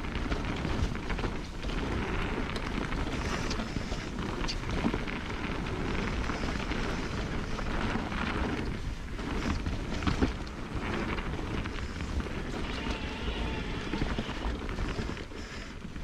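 Mountain bike riding down a dirt singletrack: a steady rush of tyre and wind noise on the camera microphone, with sharp knocks and rattles from the bike over bumps, one of the loudest about ten seconds in.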